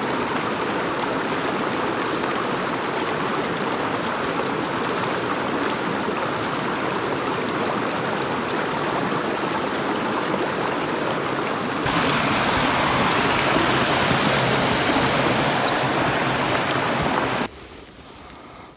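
Shallow mountain stream flowing over rocks, a steady rushing of water that grows louder and brighter about twelve seconds in. It cuts off suddenly near the end to a much quieter background.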